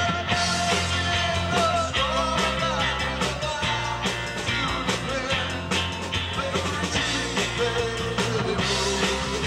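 Live rock band playing: electric guitars, bass guitar and a drum kit, with a held, bending melody line over a steady bass and beat.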